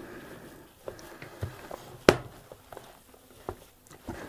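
Gloved hands kneading moist bread-dumpling dough in a plastic bowl: soft squishing with scattered light taps, and one sharp knock about two seconds in.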